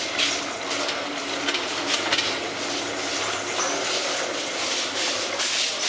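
A hospital stretcher trolley pushed fast along a corridor, its wheels rattling steadily over the floor, with hurried footsteps and irregular knocks and clatter.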